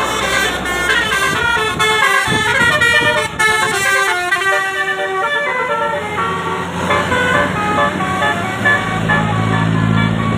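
Bus telolet horn: an 18-trumpet musical air horn playing a quick melody of stepped notes, several pitches sounding together. A low steady hum comes in near the end.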